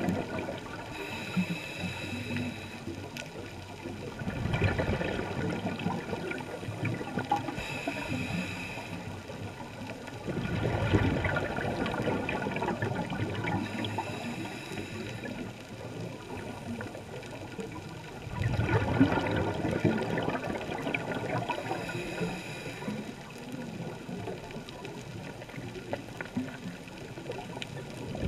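Scuba diver breathing underwater through a regulator: exhaled bubbles rush out in bursts of two to three seconds every several seconds, with a faint high hiss of the inhale between them.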